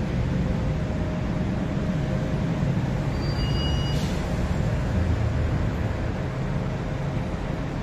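Concarril/Bombardier TE-95 light rail train running away from the platform: a steady low rumble that slowly fades as it recedes, with one sharp click about halfway through.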